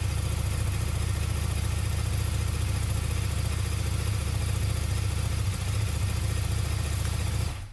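KTM 1290 Super Duke R's V-twin engine idling steadily on its first run after a gearbox rebuild and refit into the chassis. It stops suddenly near the end.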